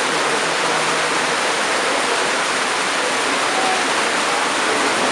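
Floodwater rushing fast: a loud, steady, even rush of flowing water.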